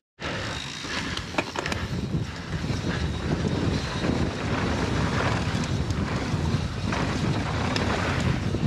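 Mountain bike descending a dirt trail at speed: steady wind rush on the action camera's microphone over tyre noise on dirt, with the odd click and rattle from the bike.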